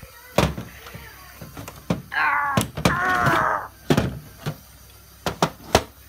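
Light plastic clicks and knocks from handling a toy washing machine, its door and buttons. Two short warbling tones sound about two to four seconds in.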